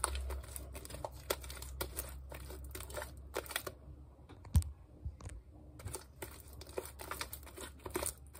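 Borax-activated fluffy slime being kneaded and stretched by hand, giving irregular wet clicks and small crackling pops, with one sharper pop about four and a half seconds in.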